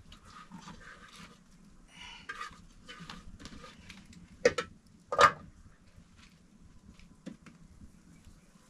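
Firewood being shifted under a wood-fired bread griddle and a metal bowl being handled: scraping, rustling and light knocks. About halfway through come two short, sharp, louder sounds half a second apart, then a few small ticks.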